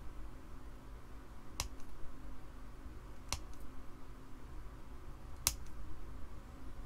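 Three short, sharp clicks about two seconds apart over a low steady hum.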